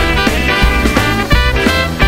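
Swing music with a steady beat.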